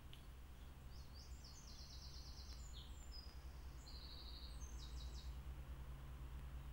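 A small songbird singing faintly: a string of high-pitched, rapidly repeated notes and short trills, starting about a second in and stopping about five seconds in. A steady low hum and hiss lies underneath.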